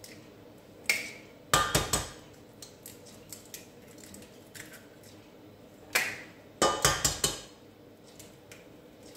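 Eggs being cracked against the rim of a stainless steel saucepan: two clusters of sharp knocks, one about a second in and another about six seconds in.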